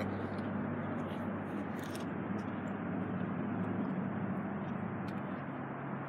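Steady low hum of outdoor background noise, with a few faint clicks.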